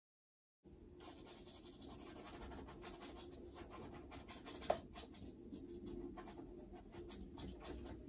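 Paintbrush dragging acrylic paint across a stretched canvas: a run of short, scratchy brush strokes starting about half a second in, with one sharp tap a little past the middle.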